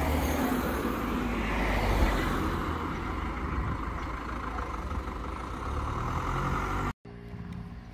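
Road traffic: cars and a van driving past on an asphalt country road, a steady engine and tyre rumble that is loudest in the first couple of seconds and then eases. It cuts off abruptly about seven seconds in, giving way to quieter background sound.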